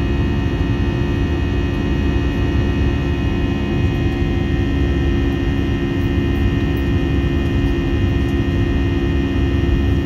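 Airbus A320 jet engines and airflow heard from inside the passenger cabin: a steady, heavy drone with constant humming tones over a low rumble.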